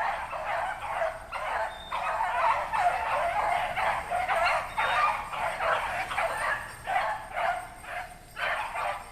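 A pack of rabbit hounds baying in overlapping, repeated calls as they run a rabbit's scent trail.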